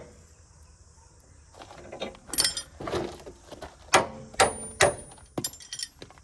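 Metal clanking and knocking as the steel pulling gear is handled: a run of sharp knocks beginning about two seconds in, some of them ringing briefly.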